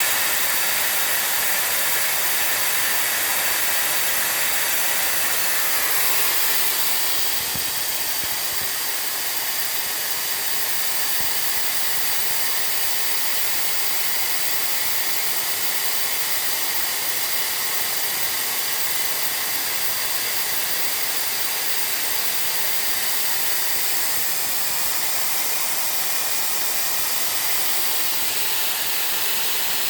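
Steady hiss of rushing air or fans, strongest in the upper treble, dropping slightly in level about six seconds in.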